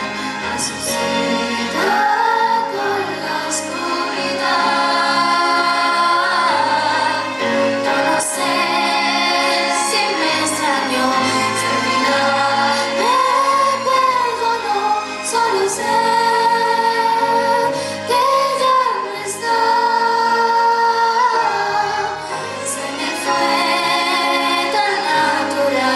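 Children's and teenagers' choir singing a slow ballad together with an instrumental accompaniment.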